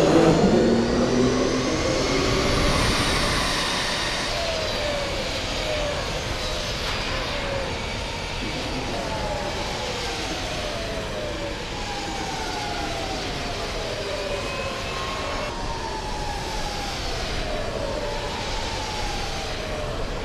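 Electric race motorcycles accelerating on a wet track: the high whine of their electric motors rises in pitch again and again over a steady rushing noise. It is loudest at the start, as the pack passes, and eases after a few seconds.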